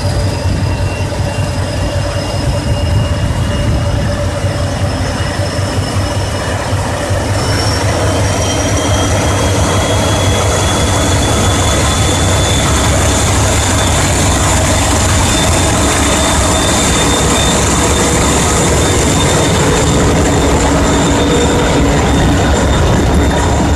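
TGM8 diesel-hydraulic locomotive approaching and passing close with a freight train, its diesel engine running with a steady low drone. A high whine rises slowly in pitch, and the sound grows a little louder as the locomotive comes alongside.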